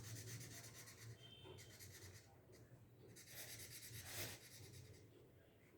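Faint scratching of a felt-tip marker rubbing across paper in colouring strokes.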